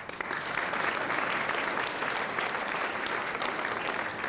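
Audience applauding a graduate: steady clapping from a large seated crowd that starts suddenly.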